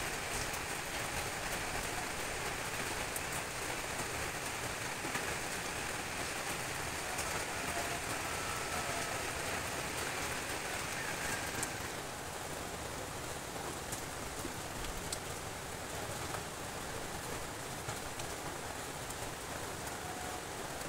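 Steady rain on corrugated iron roofs: a continuous hiss with scattered faint drop ticks, easing a little about halfway through.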